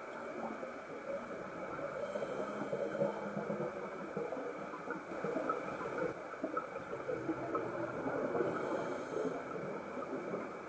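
Underwater sound of a scuba dive: a continuous crackling, bubbling noise with two hissing breaths through a diver's regulator, one about two seconds in and another near nine seconds.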